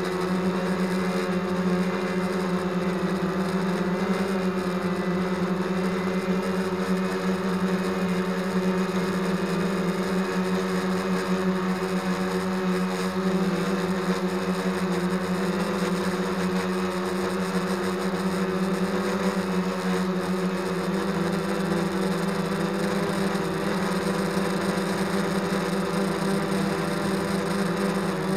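Quadcopter drone's propellers humming steadily at a constant pitch while it flies.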